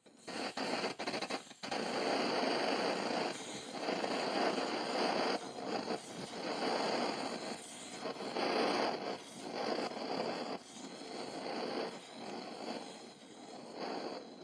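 Vintage brass Max Sievert blowtorch soldering iron burning with a loud roaring hiss that surges and dips every couple of seconds as its valve is opened and the flame flares around the copper bit, with a few sharp pops in the first two seconds.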